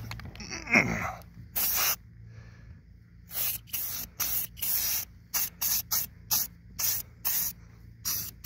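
Aerosol spray paint can spraying a dozen or so short bursts, touching up the black lower body panel of a 1986 Chevrolet Camaro; the bursts come quickly from about three seconds in. A brief pitched sound about a second in is the loudest moment.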